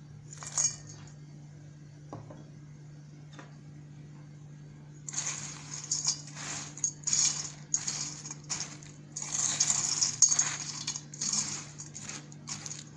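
Chopped walnuts poured onto broken tea biscuits in a stainless steel bowl about half a second in, then, from about five seconds in, a metal spoon stirring the dry mix in irregular strokes, scraping and clinking against the steel bowl.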